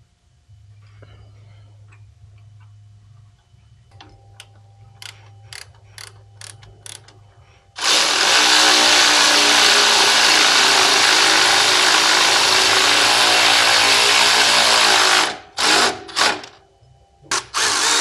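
A few light clicks, then a cordless power ratchet runs steadily for about seven seconds, driving the floorboard bracket bolts in. It follows with a few short bursts near the end as the bolts bottom out.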